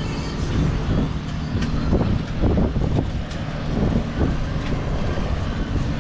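Strong wind buffeting the microphone: a loud, uneven low rumble with gusts.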